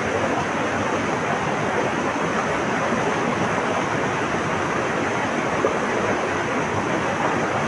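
Flowing water making a steady, unbroken rushing.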